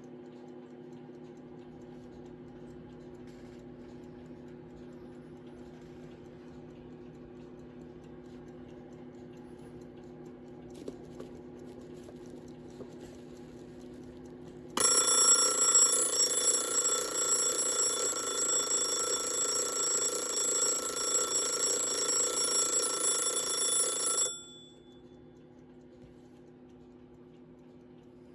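Mauthe mechanical alarm clock ticking quietly, then its alarm bell starts suddenly about halfway through and rings loudly and continuously for about ten seconds before cutting off abruptly.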